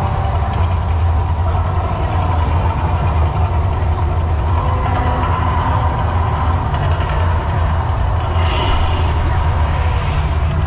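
Mirage volcano eruption show: a deep, steady rumble, with a hissing whoosh of flame bursting up about eight and a half seconds in.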